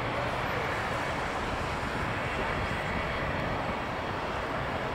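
An Airbus A350-900's twin Rolls-Royce Trent XWB turbofans at takeoff thrust during the takeoff roll, giving a steady, even rush of jet noise.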